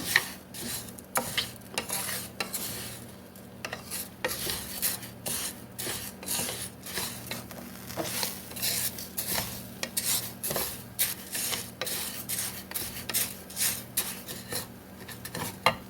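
Spatula or spoon stirring and scraping dry rice being toasted in oil in a pan, in repeated irregular strokes, with a light sizzle. The rice is at the browning stage.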